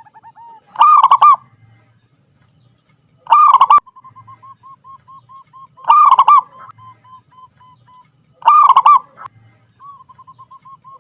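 Zebra dove (perkutut) singing: four loud, multi-note coo phrases about two and a half seconds apart, each followed by a run of soft, quick, evenly spaced short coos.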